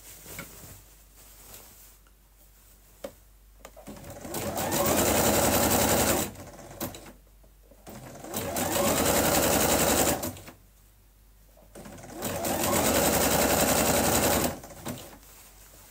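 Bernette electric sewing machine running a zigzag stitch in three runs of about two seconds each, picking up speed with a rising whine at the start of each run, with short pauses in between.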